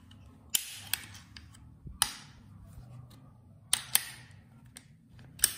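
Sharp metallic clicks from working the action of a PCP air rifle fitted with a CNC single-shot tray, about six in all, some in quick pairs. Several clicks are followed by a short scraping rasp.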